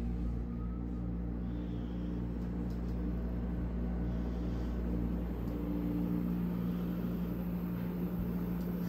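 A 1980s GE room air conditioner running just after being switched on, with a steady low hum.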